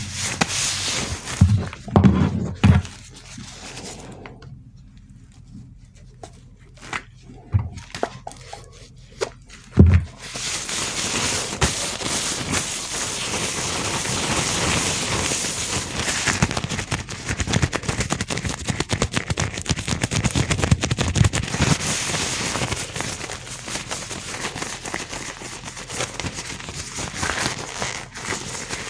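Close-miked gloved hands rubbing and crinkling, ASMR-style. A few thumps and scattered ticks come first, then from about ten seconds in a dense, steady crackling.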